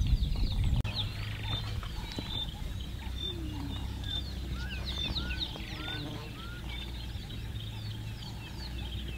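A chorus of wild birds calling from the bush, many short high chirps overlapping with lower rising calls, over a low rumble that is loudest in the first second.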